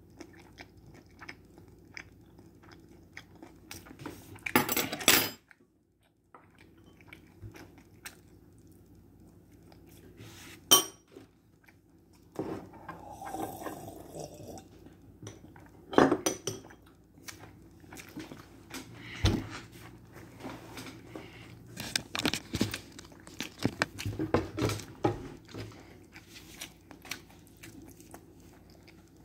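A child eating: chewing, with metal chopsticks and dishes clinking and several sharp clinks and knocks. About halfway through she drinks from a stainless steel cup.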